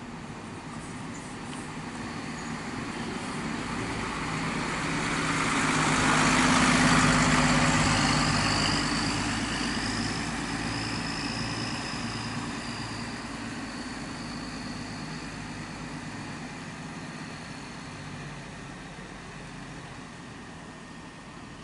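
Intercity coach's diesel engine driving past: it grows louder as the bus comes near, peaks about a third of the way in, then fades slowly as it pulls away across the terminal. A thin high whine sounds as it goes by.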